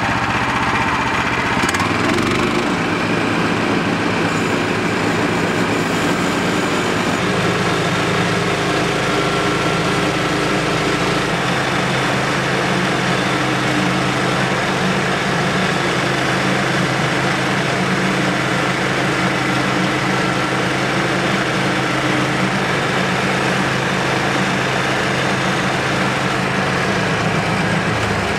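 Bandsaw sawmill cutting through a log: the Kohler Command Pro engine runs steadily under load while the band blade saws the cant. The engine note shifts about two seconds in and changes again right at the end.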